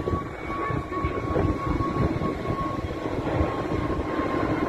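Twin-engine jet airliner climbing out after takeoff: steady engine noise with a held whine that drifts slightly lower in pitch.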